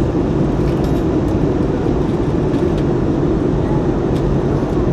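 Steady cabin noise of an Airbus A320neo in flight, the engines and the airflow past the fuselage heard from a window seat, with a few faint clicks.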